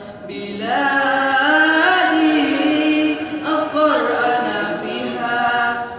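Boys' voices singing an Arabic patriotic song into a microphone, with long held notes, a short pause between phrases a little past the middle.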